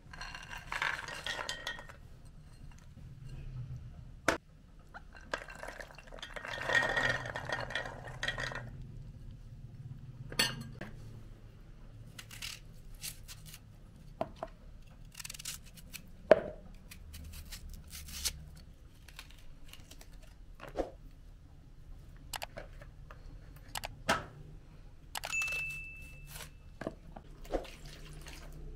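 Dried white beans poured from a plate into an aluminium bowl, rattling for a couple of seconds, and a second longer rattling pour soon after; then scattered light clinks and knocks of bowls, trays and a knife.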